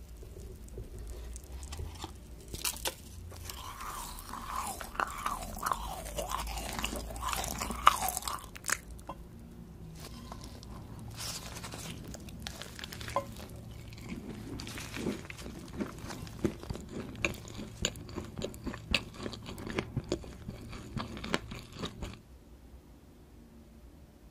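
Close-miked eating: biting and chewing a sugar-coated gummy candy sheet, then crisp crunching bites of a corn-shaped waffle pastry. The chewing stops about two seconds before the end.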